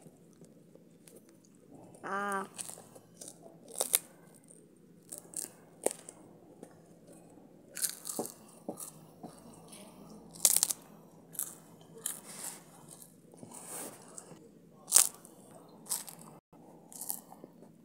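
A puffed rice cake being bitten and chewed: a string of sharp, irregular crunches close to the microphone. About two seconds in there is a brief voiced hum.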